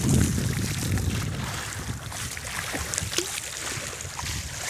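Sea water splashing and sloshing around legs wading through shallow water, with wind rumbling on the microphone, strongest in the first second or two.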